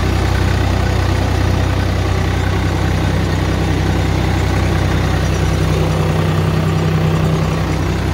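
Swaraj 855 tractor's three-cylinder diesel engine running steadily, heard close up from the driver's seat, as the tractor tows a laser land leveler across the field.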